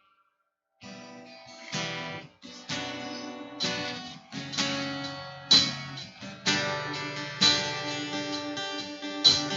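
Acoustic guitar strumming chords, coming in about a second in after silence, with an accented strum roughly every second: the intro of a worship song.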